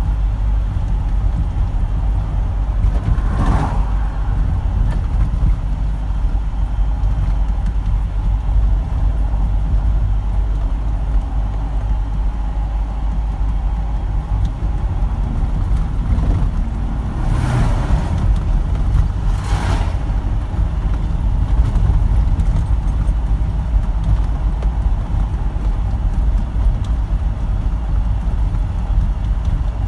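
Steady low rumble of the engine and tyres heard from inside the cab of a moving vehicle on a rough, patched road, with oncoming vehicles whooshing past three times: once a few seconds in, and twice close together just past the middle.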